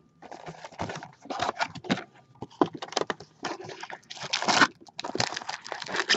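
Crinkling and rustling of trading-card pack wrappers being torn open and handled, in irregular short bursts.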